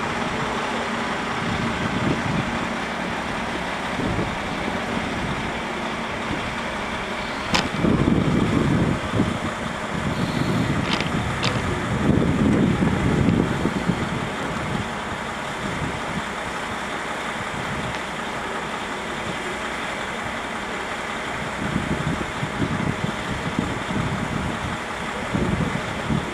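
KiHa 40 diesel railcar engine running at a station platform: a steady rumble that swells louder several times. A sharp click comes about seven and a half seconds in.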